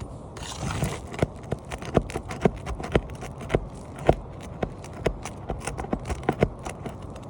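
Repeated sharp knocks, about two or three a second and uneven, of a hand tool working at asphalt roof shingles to free overdriven nails, after a brief scraping rustle near the start.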